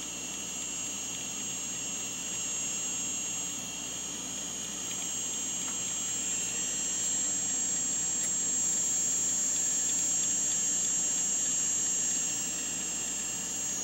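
Uncovered two-platter 540 MB Maxtor hard disk drive running under a read scan: a steady whine with several high tones from its spindle motor and spinning platters, a little louder in the middle.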